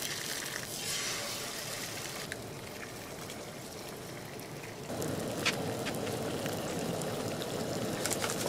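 Eggs frying in a cast-iron skillet on a camp stove, with a steady sizzle that grows fuller and a little louder about five seconds in. A few light clicks sound over the sizzle.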